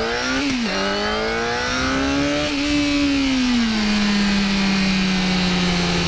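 Yamaha FZ6R's 600cc inline-four engine, recorded onboard. The revs climb, drop sharply with an upshift about half a second in, and climb again for about two seconds. They then fall away and settle to a steady cruise from about four seconds in.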